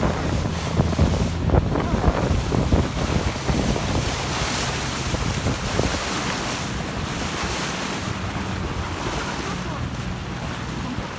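Wind buffeting the microphone and water rushing past the hull of a fast-moving inflatable motorboat, with the engine's steady low hum underneath; it grows slightly quieter toward the end.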